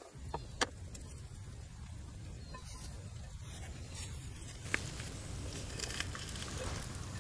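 Wood fire crackling with occasional sharp pops under a clay pot, over a low steady rumble. From about halfway, raw chicken feet are stirred in the pot, with faint scraping and a light sizzle building.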